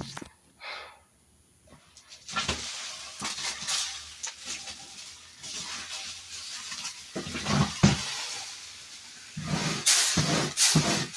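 Scooping cat litter: gritty scraping and rattling of litter granules, louder in stretches near the end. A brief high-pitched cry comes about a second in.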